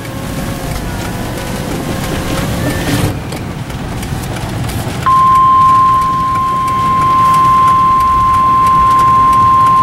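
Rumbling noise of a car being driven. About five seconds in, a NOAA Weather Radio warning alarm starts suddenly: one loud, steady, single-pitched tone that holds. It is the alert that comes before a tornado warning broadcast.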